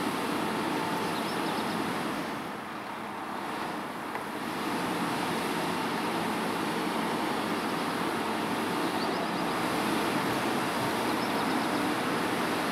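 Steady road traffic noise from passing vehicles, with a short dip a couple of seconds in; no siren or horn sounds.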